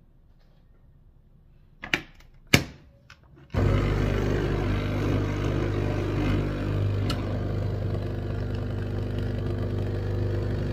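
Capsule coffee machine brewing into a mug: two sharp clicks from working the machine, then its pump starts with a steady loud buzz and keeps running as the coffee pours.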